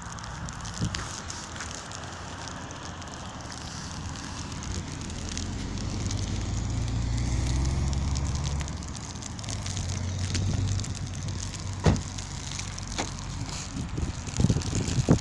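Outdoor crackling noise with wind rumbling on the microphone, loudest in the middle, and a few sharp clicks that come more often near the end.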